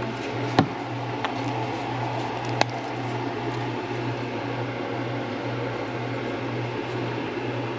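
Steady mechanical hum with a few light clicks and taps from a garlic powder container being opened and sprinkled, the sharpest about two and a half seconds in.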